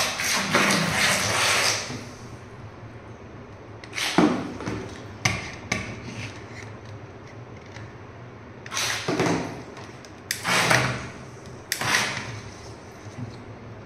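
Small blue RC crocodile boat's electric motor and propeller churning bathtub water under throttle: one long spurt at the start, then six short spurts a second or a few seconds apart as the throttle is blipped.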